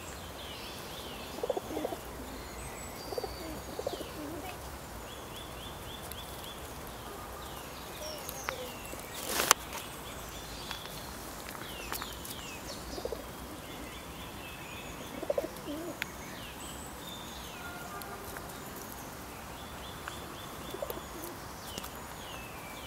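Songbirds chirping and singing in short repeated trilling phrases, with occasional low pigeon coos and a single sharp click about nine and a half seconds in.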